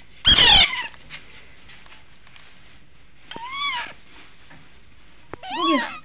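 Alexandrine parakeet chick calling three times while being spoon-fed: a loud, harsh squawk just after the start, then two shorter arching calls around the middle and near the end, typical begging calls of a hand-fed chick.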